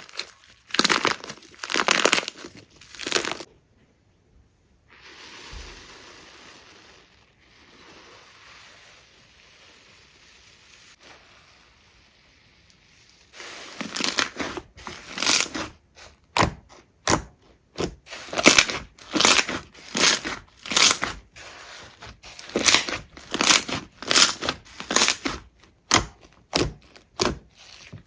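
Hands squeezing and pressing slime, making crackly squishing sounds in short repeated strokes. After a few seconds it goes quiet with only a faint hiss, then the squishes come back about a third of the way in and repeat about one and a half times a second.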